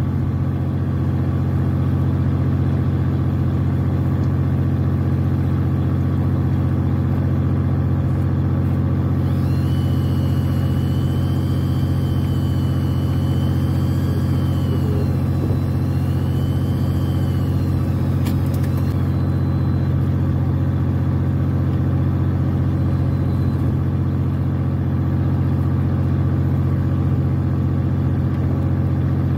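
Fishing boat's engine running with a steady deep hum. About nine seconds in, a wavering high whine rises and falls for about ten seconds, then stops.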